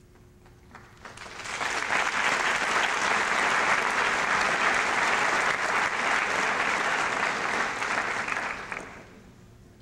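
Audience clapping, swelling in about a second in, holding steady, then dying away near the end.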